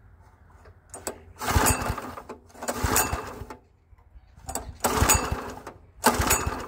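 Small Honda-clone engine being pull-started four times, each pull of the recoil rope cranking it briefly without it catching: the tank is out of gas.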